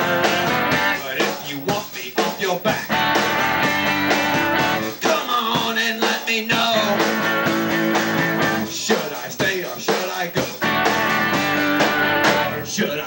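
Live rock band playing: electric guitars and a drum kit, loud and continuous.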